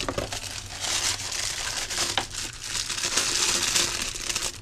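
Thin packaging wrap crinkling and rustling as it is handled and pulled off a small replacement DC motor.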